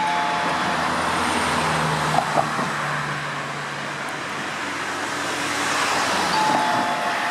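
Steady road traffic, cars passing on the street. Two short sharp clicks come about two seconds in, and a brief two-note falling tone sounds near the end.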